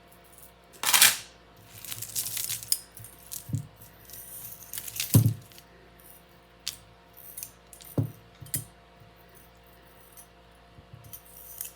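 Metal bangles and jewelry clinking and jingling against each other as they are handled, in a series of sharp clinks, the loudest about a second in and around five seconds in.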